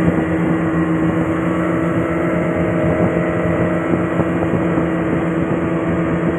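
A boat's engine running steadily under way, holding an even pitch.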